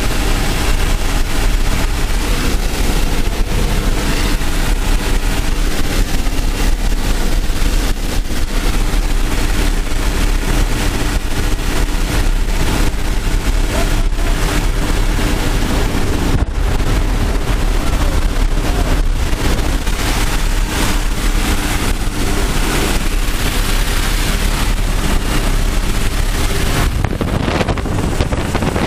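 Steady drone of a skydiving jump plane's engine and propeller heard from inside the cabin, mixed with rushing air. Near the end the rush of wind grows louder at the open door.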